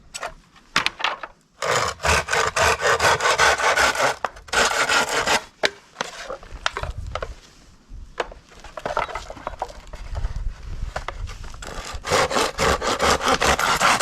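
Hand saw cutting through a dry, dead bamboo stalk: fast back-and-forth strokes in loud runs, a quieter stretch in the middle, then another loud run near the end.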